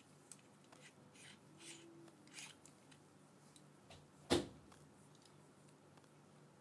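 Small handling sounds of a clip-on wide-angle phone lens and its clip in gloved hands: a few soft scrapes and rubs, then one sharp click a little past the middle as the parts are fitted together.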